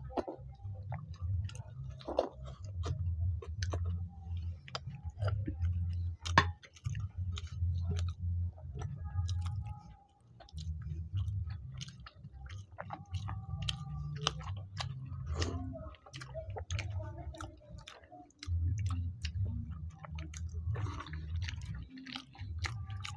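Close-miked chewing and wet mouth smacking of two people eating soft fried luchi and potato curry by hand: a low, uneven chewing sound in stretches with short breaks, dotted with many small clicks and smacks.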